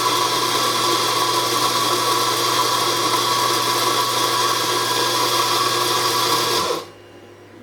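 Eureka Zenith 65 E Hi-Speed espresso grinder's motor and burrs running steadily through a timed dose of about eight seconds, grinding coffee beans. It cuts off abruptly about seven seconds in.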